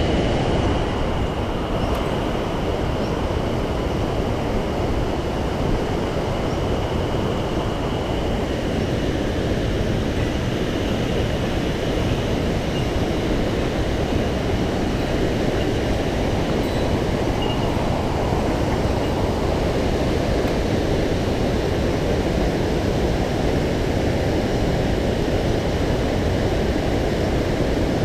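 Mountain stream rushing over rocks: a steady, unbroken roar of moving water.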